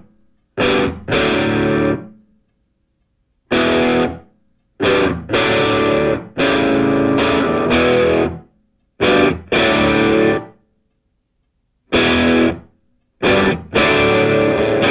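Background music: distorted guitar riffs that play in short bursts and break off into complete stops between them.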